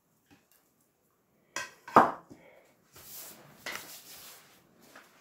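A small dish set down on the table: a light clink, then a knock about two seconds in. After it comes a soft rustle as hands are brushed together.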